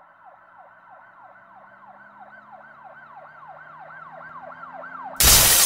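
Emergency-vehicle siren in a fast yelp, about three falling sweeps a second, growing louder. Near the end a sudden loud crash of a glass bong shattering.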